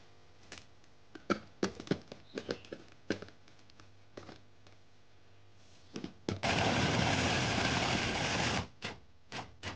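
Electric food chopper with a glass bowl: a few clicks and knocks as the motor head is set onto the bowl, then the motor runs for about two seconds chopping shallots and garlic, followed by two short pulses near the end.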